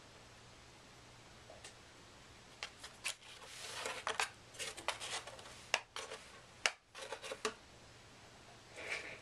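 A cat's paw scraping and tapping inside a cardboard treat puzzle box, with sharp clicks and rubbing in a busy stretch from about three to seven and a half seconds in, and a softer rustle near the end.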